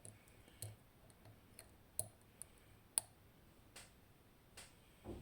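Faint, irregular metal clicks, about six over several seconds, from a lock pick working the spool and tapered pins of a Nemef NF2 six-pin tumbler lock under tension, the pins clicking as they are lifted toward the shear line.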